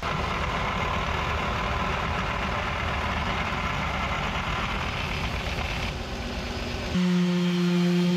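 Belt sander running with the curved edge of a mahogany board held against its belt, a steady sanding noise. About seven seconds in it gives way to a random orbital sander running with a steady, even-pitched hum.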